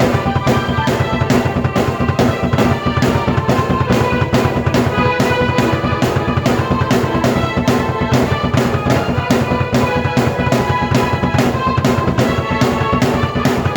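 Drum kit and keyboard played at the same time, a steady beat of about four hits a second under sustained keyboard chords and melody.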